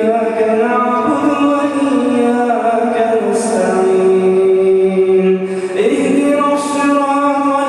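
A man reciting the Quran aloud in melodic tajwid style, drawing out long held notes that step and slide between pitches.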